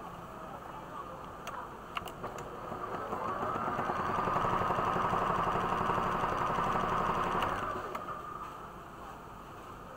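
A portable electric sewing machine running a zigzag stitch, its needle going up and down in rapid strokes. It starts up about two and a half seconds in, runs steadily for about four seconds, then slows and stops. A few light clicks come before it starts.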